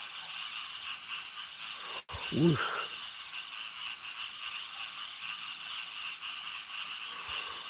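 Steady high-pitched chorus of night insects calling around a rice field. About two and a half seconds in, a man makes one short murmur, just after a brief dropout in the audio.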